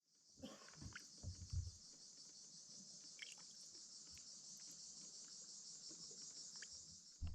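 Steady, faint high-pitched insect chorus droning without a break, with a few low thumps in the first two seconds and another just before the end.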